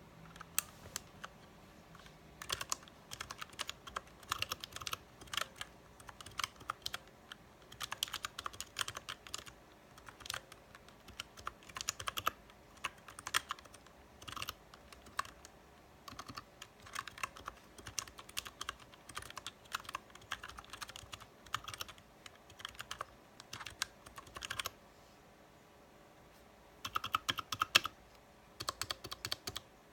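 Typing on a mechanical keyboard with Outemu purple tactile switches whose keycap stems carry rubber-dome keypads, which damp the keystrokes like O-rings: quick runs of keystrokes with short pauses, a longer pause about 25 seconds in, then more typing.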